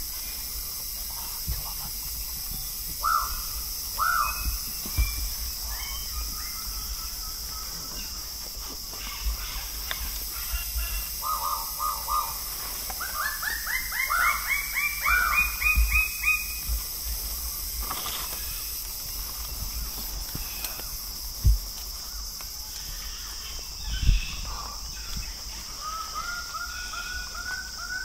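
Male lesser birds of paradise calling during their lek display: a couple of single calls, then a fast run of repeated notes that climbs steadily in pitch, and another run starting near the end.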